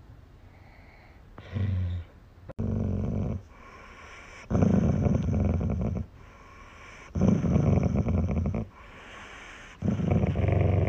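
Dog growling and grumbling in five low, rough bouts, each up to about a second and a half long, while its head is being stroked: a complaining grumble from a dog that still wants to be petted, not an angry growl.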